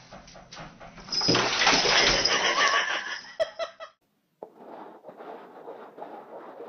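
Water gushing loudly into a bathtub for a few seconds, then cutting off sharply. After a short silence, a softer steady scraping hiss as upturned cups are slid around on a tile floor.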